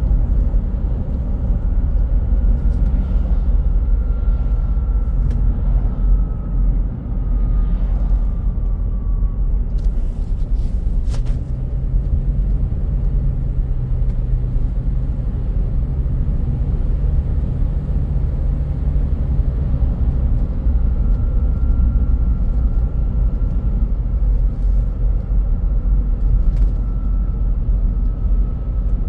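A faint high whistle that slowly falls in pitch over a loud, steady low rumble. The whistle is heard twice: from about two to nine seconds in, then again from about twenty-one seconds to the end.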